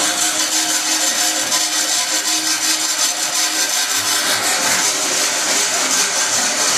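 MIG welding arc crackling steadily.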